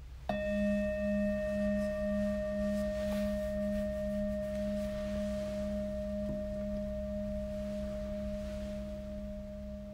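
A singing bowl struck once, ringing on with a low pulsing hum and several higher overtones that fade slowly, over a low steady background hum.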